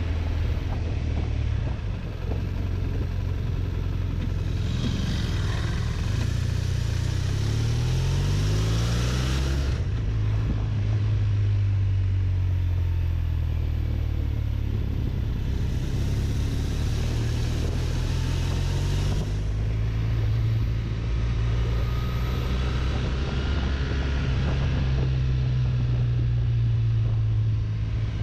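BMW touring motorcycle engine running at road speed, with wind rush. The revs climb for several seconds before easing off about ten seconds in, then climb again a little past halfway before settling.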